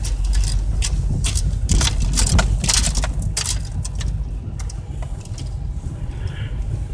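Car driving on a wet dirt road laid with rock, heard from inside the cabin: a steady low rumble of engine and road, with irregular sharp crunches and clicks from the rock under the tyres.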